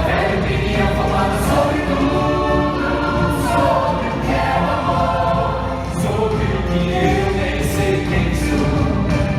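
Music with choral singing: many voices holding long, layered notes over a full accompaniment.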